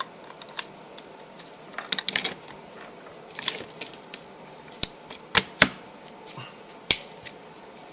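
Scattered sharp clicks and light taps of small parts being handled: the batteries and battery compartment of a replica EOTech holographic sight being fitted back together. The loudest clicks come in the second half, about five and a half seconds in.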